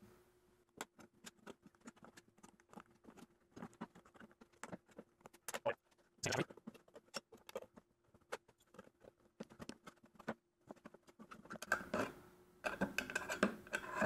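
Knipex diagonal cutting pliers snipping and prying around the lid of a steel food can to cut it open without a can opener: a run of irregular small metal snips and clicks, a few louder ones near the middle.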